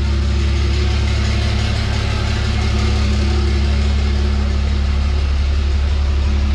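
6.7 L Cummins inline-six turbo diesel idling steadily, just fired up for the first time on its new fuel cell and lift-pump fuel system.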